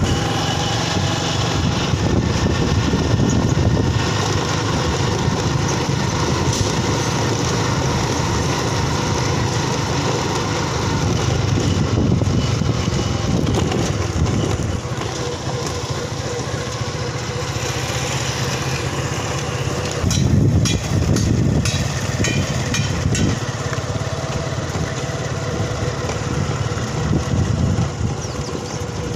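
Small motorcycle engine running steadily under way, with wind and road rumble on the microphone.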